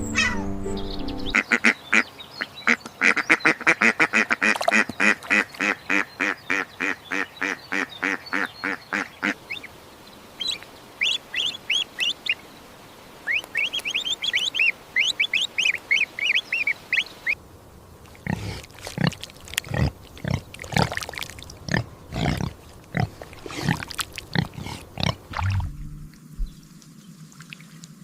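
Recorded animal calls played one after another. First comes a fast, even run of calls for about eight seconds, then short high chirps, then a stretch of irregular lower calls that stops shortly before the end.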